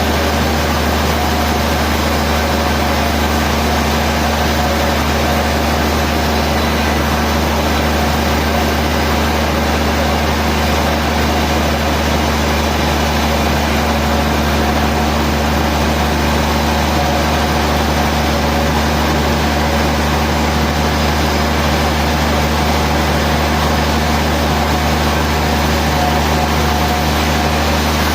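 Sawmill machinery running steadily: a constant low engine hum that holds an even level and pitch throughout.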